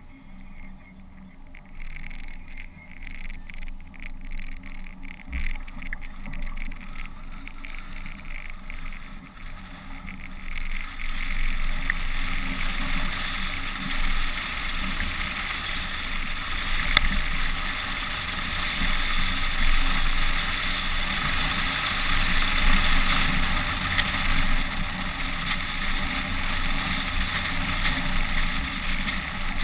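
Rushing wind and tyre noise from a car driving over snow, heard through a camera mounted on the outside of the body. The hiss grows louder about ten seconds in and then holds steady.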